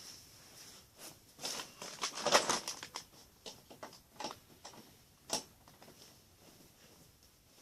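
Pokémon trading cards rustling and pattering, with a dense flurry of small clicks and flicks about two seconds in, then scattered ticks.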